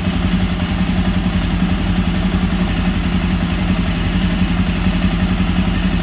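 Jawa 42 Bobber's single-cylinder engine idling steadily.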